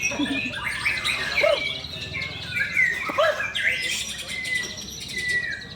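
White-rumped shama (murai batu) singing a rich, varied song of whistles and trills, ending in a long, nearly level whistle near the end.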